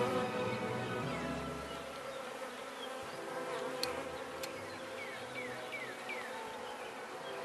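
Many honey bees buzzing around an opened top bar hive, a steady hum of several tones at once, with two sharp clicks near the middle.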